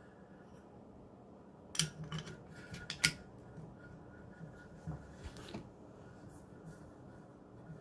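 Knife-sharpening gear being handled: a scatter of light clicks and knocks, loudest about two and three seconds in.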